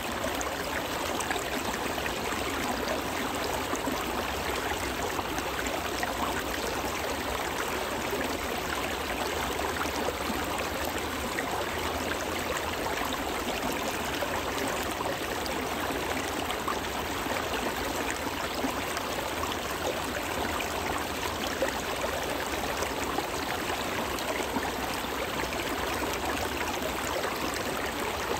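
Shallow stream running over rocks between shelves of ice and snow, a steady splashing trickle.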